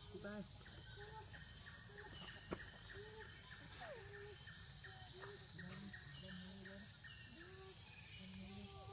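Steady high-pitched drone of insects, with a rapid ticking of about four ticks a second through the first half and short faint calls now and then in the background.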